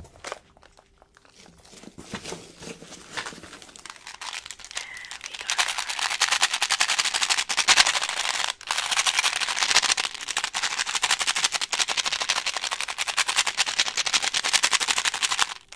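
Small candies rattling fast inside a small plastic candy container shaken close to the microphone. A few seconds of scattered clicks from handling come first. The steady rattle starts about five seconds in, breaks off briefly, and stops sharply near the end.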